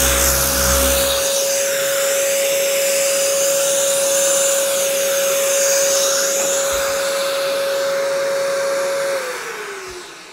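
Uneeda Ekasand 5-inch random orbit sander running with its connected dust-extraction vacuum while sanding down high spots in cured epoxy: a steady whine over a loud rushing hiss. Near the end the whine drops in pitch and fades as the sander winds down.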